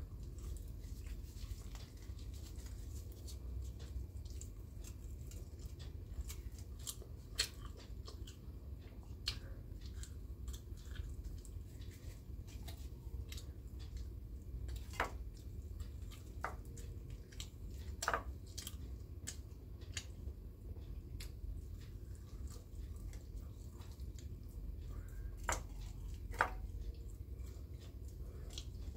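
A person eating roti by hand: chewing and mouth sounds with scattered sharp clicks and taps, a few of them louder, over a steady low hum.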